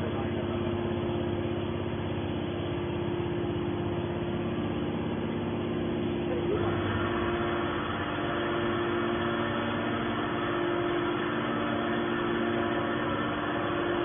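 Hydraulic scrap metal baler's power unit, an electric motor driving the hydraulic pump, running with a steady hum. About halfway through, a brighter, higher-pitched whine joins the hum.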